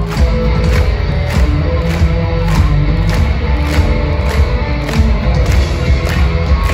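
Live rock band playing loud, with a steady, driving drum beat under guitars and bass.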